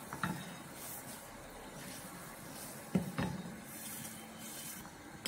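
A wooden spatula and a vessel clinking and knocking a few times against a stainless-steel kadai as roasted semolina (rava) is poured into the boiling saffron water, the loudest knocks about three seconds in, over a faint steady background.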